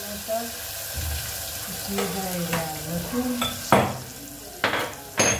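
Mustard seeds and spices sizzling in hot oil in a steel pressure cooker as a tadka, a steady hiss throughout. Several sharp clinks of a steel spoon against metal vessels come in the second half.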